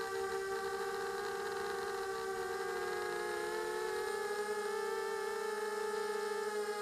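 Electric motors and propellers of a small drone whining steadily, heard from its onboard camera, with several close pitches beating together; the pitch dips and shifts briefly about three seconds in as it manoeuvres.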